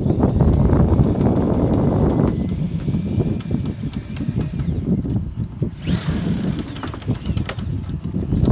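Drill driving screws through gutter hangers: the motor whines steadily for about four and a half seconds, then runs again briefly about six seconds in, its pitch falling away, over a rough low rumble.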